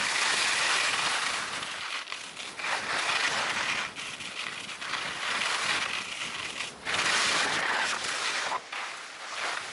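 Skis scraping and carving over a snow piste, a steady hiss that swells and eases with the turns every second or two.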